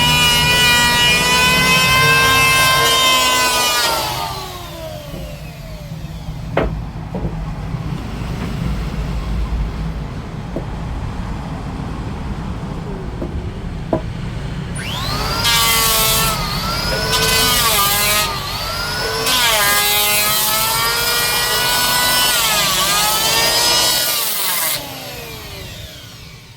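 Electric woodworking power tool cutting wood. Its high motor whine runs for about four seconds and dies away, then comes back about fifteen seconds in as several passes, the pitch dipping and recovering with each cut. A steady low hum runs underneath.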